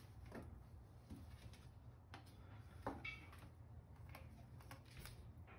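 Faint, irregular clicks and taps of hand tools and metal parts being handled under the hood as a bolt is removed and the manifold is worked free, with one brief metallic ring about three seconds in, over a steady low hum.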